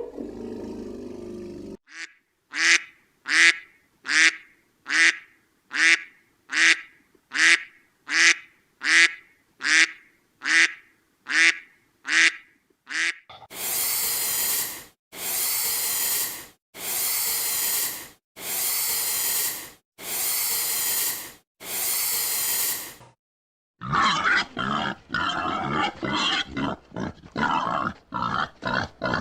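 A run of animal calls: about sixteen short pitched calls evenly spaced at roughly one and a half a second, then seven long noisy blasts of about a second each, then after a short break a rapid string of short calls.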